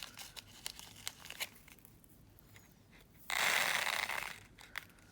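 A small plastic bag of seed beads being handled, with scattered light clicks and then about a second of loud crinkling rustle near the end.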